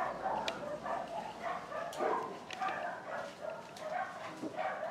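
A dog barking over and over, about two to three short barks a second, with a few faint clicks.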